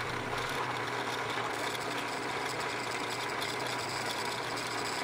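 Benchtop drill press running steadily with a low hum, its bit drilling pin holes through a steel knife tang and the glued-on wooden handle scale.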